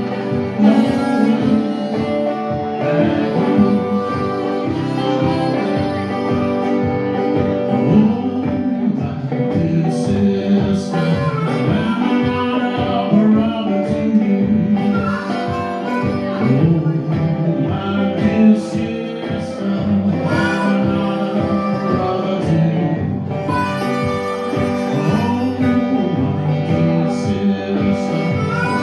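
Live blues band playing an instrumental passage, guitar to the fore over a steady drum beat.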